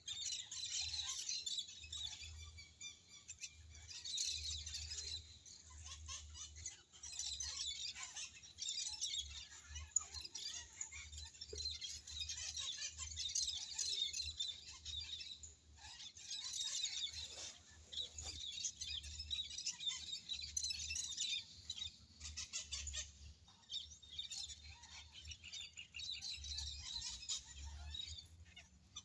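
Many small birds chirping and twittering together, in busy bursts of a few seconds with short lulls between.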